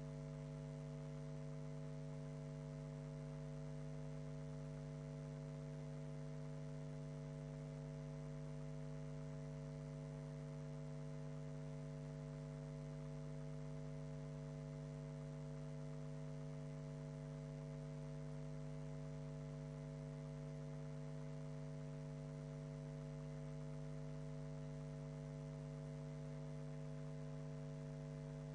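Steady electrical hum: a set of unchanging tones over a faint hiss, with no speech or other room sound coming through.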